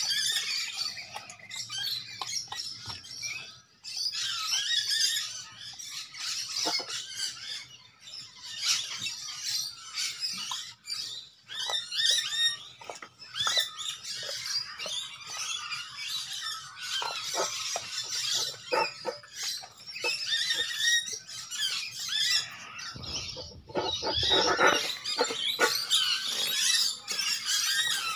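A dog gnawing and licking a raw meaty bone: irregular wet chewing, slurping and crunching clicks that come and go, with a fuller bout of crunching about three-quarters of the way through. Birds chirp in the background.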